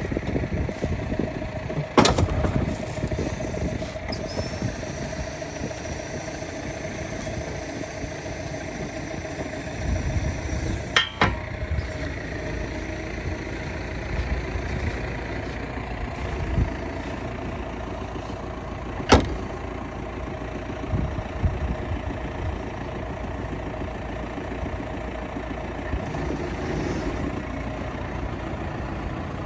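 John Deere 6110R tractor diesel engine running steadily at a low, even speed, with three sharp knocks or clunks spread through.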